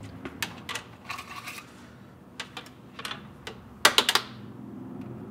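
Scattered light clicks and rattles of a thin plastic fluid-extractor tube and the dipstick being handled at the engine's dipstick tube, loudest in a quick cluster of sharp clicks about four seconds in, over a faint steady hum.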